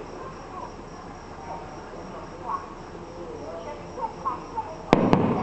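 Steady chirring of crickets, then about five seconds in two sharp firework bangs in quick succession.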